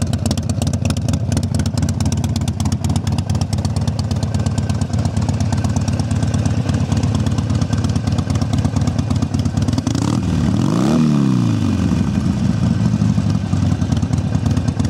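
2006 Harley-Davidson Sportster XL1200C's carbureted 1200 cc V-twin idling steadily through Screaming Eagle mufflers. About ten seconds in, the throttle is blipped once, and the revs rise and fall back to idle.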